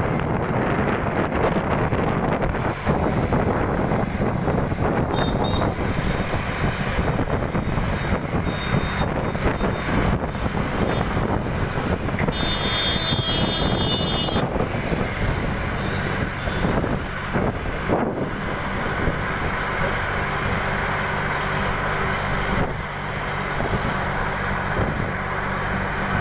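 Moving bus heard from a passenger window: engine running under a steady rush of road and wind noise, the engine hum growing steadier in the second half. A brief high-pitched whine sounds about halfway through.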